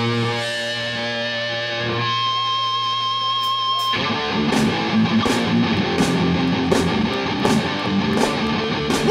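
A live hardcore band playing loud: a held electric guitar chord rings out, giving way about two seconds in to a held, wavering high guitar note. About four seconds in, drums and the full band crash in, with cymbal hits roughly every 0.7 seconds.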